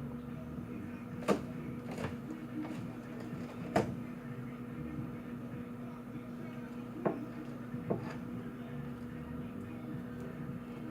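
A handful of short, light clicks and knocks, about five spread irregularly, as of kitchen items being handled or set down, over a steady low electrical hum.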